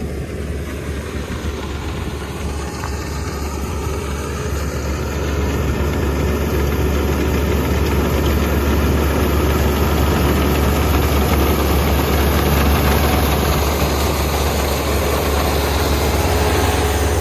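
Kubota ER470 combine harvester running, its diesel engine and machinery a steady low drone that grows louder over the first several seconds, then holds.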